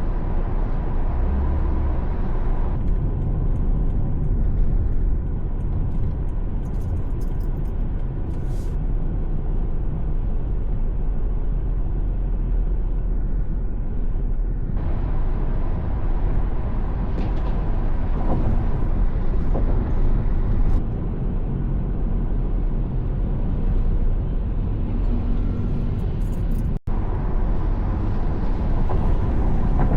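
Steady low rumble of a car driving on a road, with a hiss above it that changes abruptly a few times and one very brief dropout near the end.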